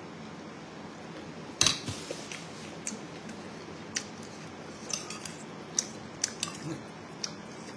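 Metal spoon and fork clinking and scraping against a ceramic bowl as the food in broth is stirred and scooped. Scattered sharp clinks, the loudest about a second and a half in.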